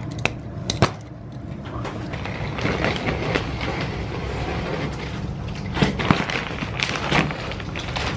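Plastic wrapping rustling and crinkling as a rolled shag rug is unwrapped and unrolled on the floor, with a few sharp crackles about a second in and again around six to seven seconds in.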